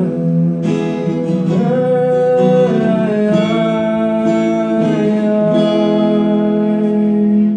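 Strummed acoustic guitar with men singing, the voices holding long notes; the music stops at the very end.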